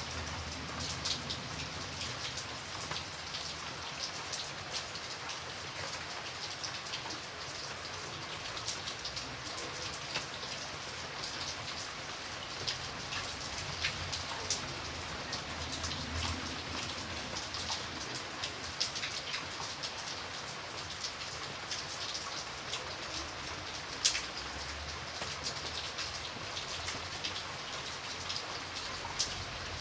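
Steady rain falling on a surface, with many individual drops ticking sharply through the hiss and one louder drop hit about 24 seconds in.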